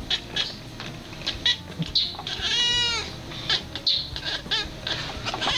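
Domestic cat chattering: quick runs of short chirps and clicks, with one longer call that rises and falls in pitch about halfway through.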